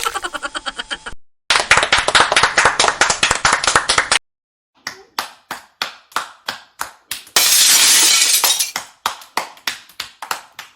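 Hand clapping, cut in and out abruptly: a stretch of fast, dense applause, then single claps about three a second, with a second and a half of loud hissing noise in the middle.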